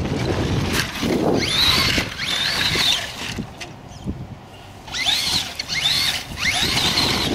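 Traxxas Stampede 4x4 VXL RC monster truck's brushless motor whining up and down in pitch under bursts of throttle, in two spells with a short lull between, over wind rumble on the microphone.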